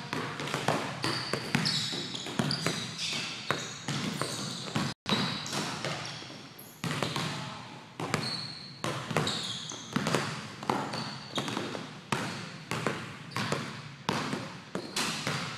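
A basketball bouncing and dribbling on a gym floor: a steady run of sharp, echoing thuds as the ball hits the court, mixed with short high squeaks of sneakers on the floor.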